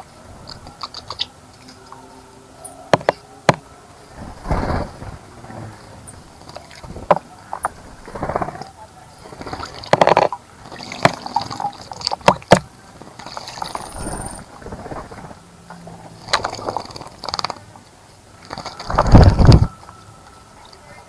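Birds bathing in a bird bath: irregular bursts of water splashing, with sharp clicks between them. The longest, loudest splash comes near the end.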